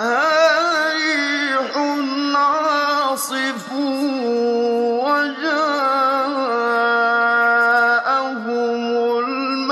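A man's solo voice in melodic Quran recitation, drawing out long held notes that step up and down in pitch, with ornamented turns between them.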